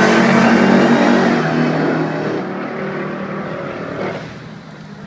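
Supercharged Chevrolet small-block 350 V8 running hard and fading away into the distance; its whine dies out at the start, and the engine sound falls steadily until it drops off about four seconds in.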